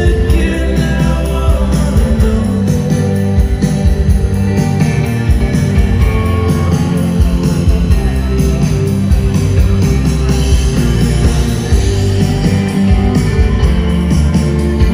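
Live rock band playing loudly and steadily, with electric and acoustic guitars, drums and keyboard, heard from the audience.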